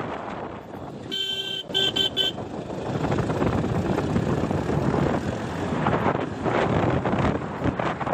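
A vehicle horn honks twice in quick succession about a second in. It is followed by the rumble and jolting of the vehicle driving on a rough dirt road.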